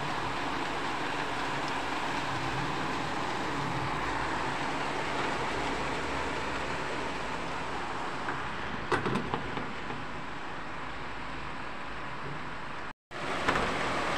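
Heavy rain pouring down, a dense steady hiss. A few light knocks come about nine seconds in, and the sound cuts out for a moment near the end.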